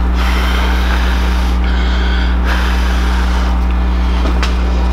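A steady low hum under everything, with a hissy rubbing that comes and goes: fine wet sandpaper (2000 grit) scrubbing a polished aluminium motorcycle clutch cover.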